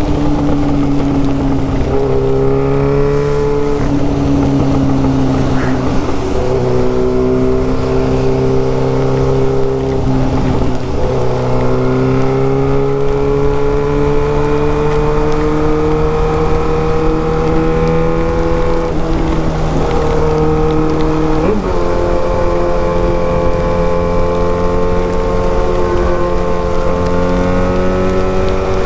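Yamaha XJ6's inline-four engine running through a straight-pipe exhaust while riding: a steady note that slowly climbs in pitch, broken several times by short dips and shifts in pitch as the rider changes gear and throttle.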